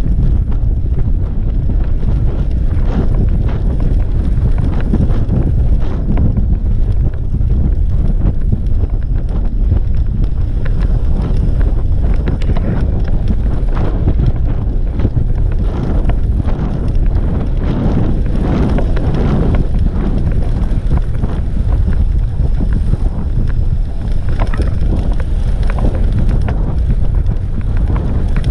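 Wind buffeting the microphone of a road bike rider's camera at riding speed: a loud, steady low rumble that swells and eases in gusts.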